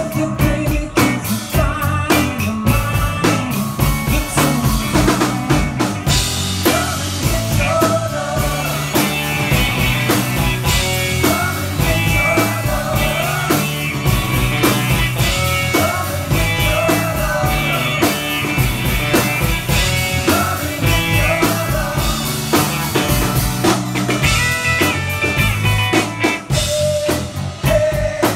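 Live rock band playing a song: a drum kit keeps a steady beat under an electric bass line and a sung lead vocal.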